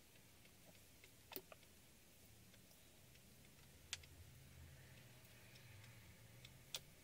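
Near silence with a few faint, light clicks and taps from cardstock pieces and a glue bottle being handled on a craft table: three sharper clicks, at about a second and a half, about four seconds in, and near the end.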